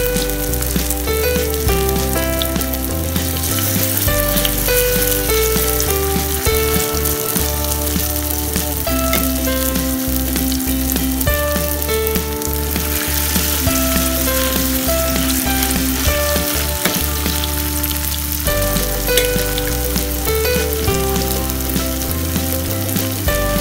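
Radish fritters shallow-frying in hot oil in a pan: a steady sizzle with fine crackling. Background music with a stepping bass line plays along.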